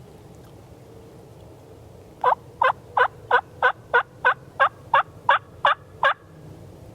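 A run of turkey yelps: twelve evenly spaced loud notes at about three a second, starting a couple of seconds in and stopping about a second before the end.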